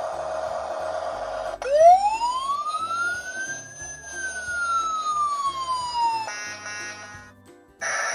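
Toy fire truck's battery-powered electronic siren: after a steady electronic tone, it starts sharply about a second and a half in and gives one slow wail, rising in pitch and then falling, followed by a short steady buzzing tone that cuts off, leaving a brief near-quiet gap.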